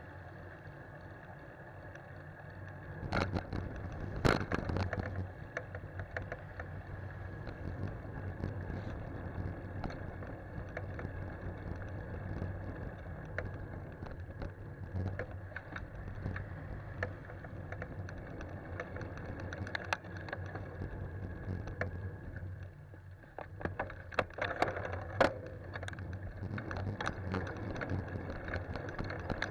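Bicycle ride noise picked up by a handlebar-mounted camera: a steady rumble of tyres on the road with some wind, broken by many small rattles and knocks from bumps in the surface, heaviest about three to five seconds in and again about twenty-four to twenty-six seconds in.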